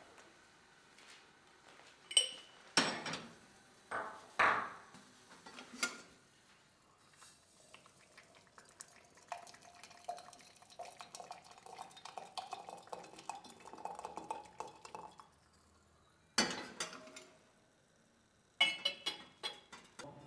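Crockery, a spoon and a metal kettle clinking and knocking: a run of sharp clinks in the first few seconds, a softer stretch of rattling and stirring in the middle, and two louder knocks near the end.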